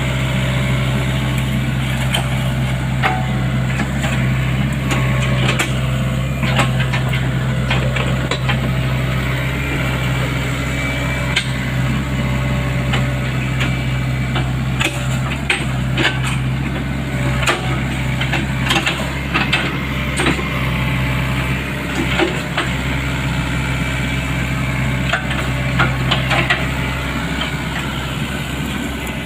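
Sany excavator's diesel engine running steadily, with frequent sharp knocks and clanks over it.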